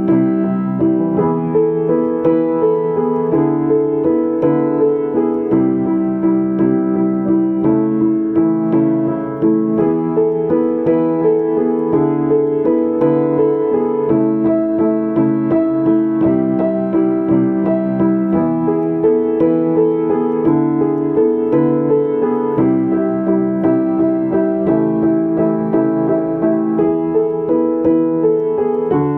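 Solo piano improvisation: steady flowing chords and broken-chord figures, mostly in the middle register, with notes struck about twice a second.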